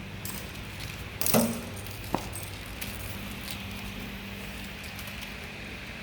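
Metal handling sounds as the welding wire spool is fitted onto the wire feeder's spool shaft: a knock with a brief ring about a second in and a sharp click about two seconds in, with a few faint ticks, over a steady low hum.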